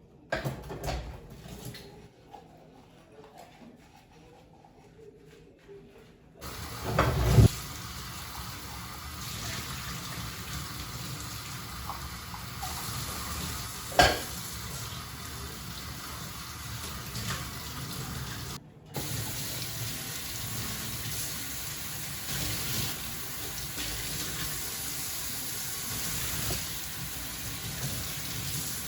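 Kitchen tap running into a sink as an even hiss, starting about six seconds in, with a loud splash or knock as it starts and a sharp knock about halfway. It stops briefly once and runs on. A few clicks and handling noises come before it.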